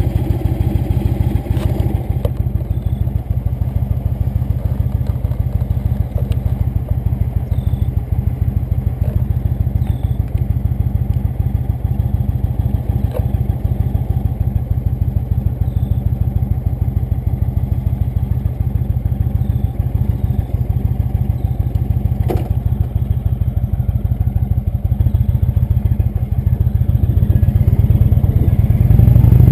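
Indian motorcycle's V-twin engine idling with a steady rapid beat, getting louder near the end as it pulls away onto the road.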